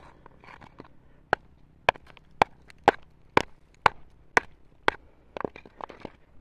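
Hard, sharp knocks of stone striking stone, about two a second for eight strikes, then a quicker run of lighter knocks near the end: rocks being hammered and shifted by hand to get into a crevice without a digging tool.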